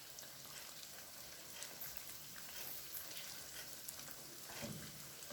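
Oats-coated chicken pieces deep-frying in hot oil: a steady faint sizzle with scattered small crackling pops.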